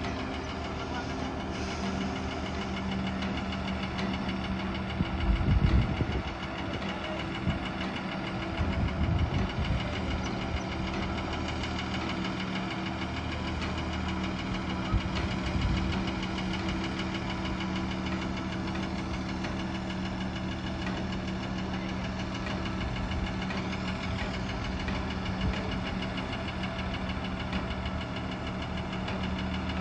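Diesel engine of a truck-mounted hydraulic crane running steadily with an even hum, with a couple of brief low rumbles about five and nine seconds in.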